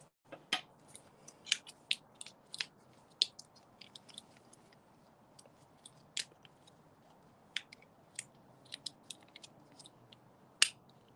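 Small items being handled and fitted together on a table: irregular sharp clicks and crackles, several a second at first, sparser through the middle, with one louder click near the end.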